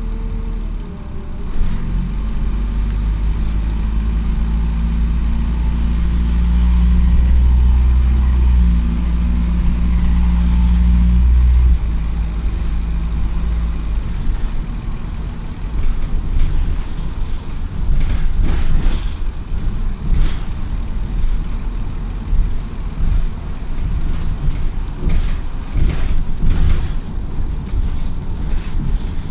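Optare Solo bus heard from inside the rear saloon: the engine pulls with a steady hum that cuts away about twelve seconds in. The bus then runs on more quietly with repeated sharp rattles and clicks.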